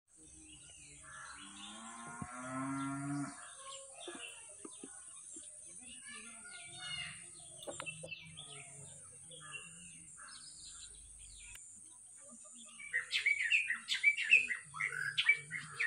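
Birds chirping around open paddy fields, with a cow mooing once, a long call about a second in. Near the end the chirping turns into a busy, loud run of quick repeated calls.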